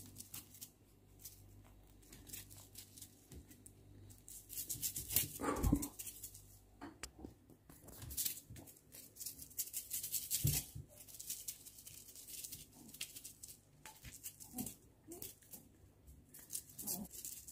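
A British Shorthair kitten playing with a feather wand toy: faint scattered rustles, taps and claw scrapes on the chair's fabric seat, with now and then a louder thump.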